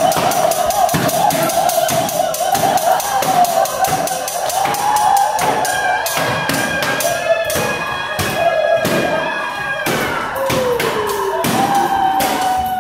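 Improvised sound-art performance inside a concrete structure: a dense run of quick taps and knocks, over sustained, wavering pitched tones. A higher tone enters about halfway through and slides down in pitch near the end.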